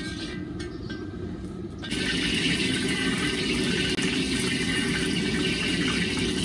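Steady rushing hiss of an LPG gas burner (bhatti) firing under a wok of heating oil. It gets louder about two seconds in.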